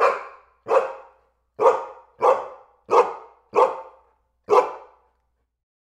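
A dog barking seven times in a row, each bark sharp at the start and trailing off over about half a second.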